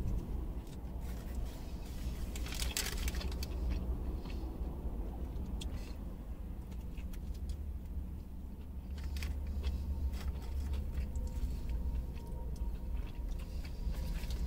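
A man eating a crispy fried chicken sandwich: close-up chewing and mouth sounds with short rustling crackles, the loudest about three seconds in, over a steady low rumble inside a car.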